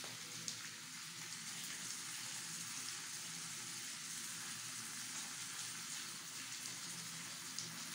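Hot oil sizzling steadily in a frying pan around freshly added sliced tomatoes, with a light tap about half a second in.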